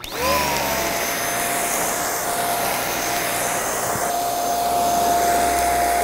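Boreas handheld mattress vacuum switching on, its motor spinning up within a fraction of a second to a steady high whine over a rushing airflow, then running steadily.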